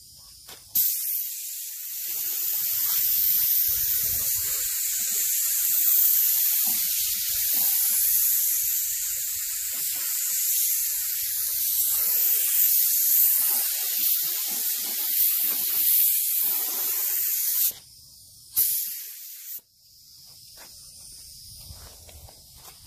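Harbor Freight HTE spray gun at 20 psi spraying clear coat: a steady hiss of air and atomised paint for about seventeen seconds. It cuts off sharply, then comes one brief second burst.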